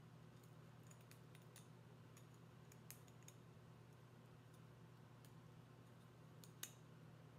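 Faint, scattered clicks and ticks of 18 gauge wire being worked by hand, pulled down between the wire coils around an agate slice. A low steady hum sits underneath.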